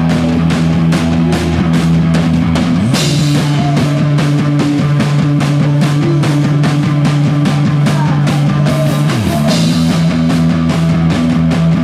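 Live rock band playing loudly, with two drummers hammering a steady beat of about four hits a second under sustained low notes. About three seconds in, the low notes slide up under a cymbal crash; near nine seconds they slide back down under another crash.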